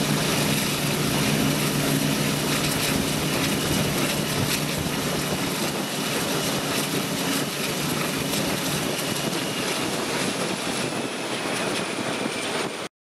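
Class 42 Warship diesel-hydraulic locomotive D821 running under power, its twin Maybach engines giving a steady low drone over a strong rush of wind and wheel noise from alongside the moving train. The engine note fades about halfway through, and the sound cuts off suddenly near the end.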